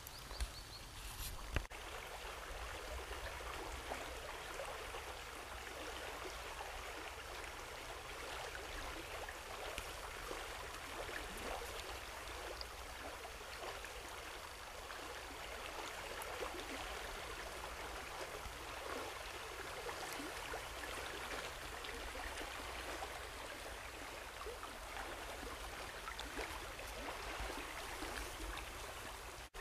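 Small shallow river running steadily over a riffle, a continuous even rush of water. Two short knocks in the first couple of seconds.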